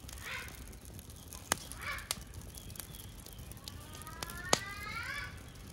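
Small fire of dry leaves and twigs crackling, with three sharp pops, the loudest near the end, as a plucked chicken is singed over it. Faint rising calls in the background.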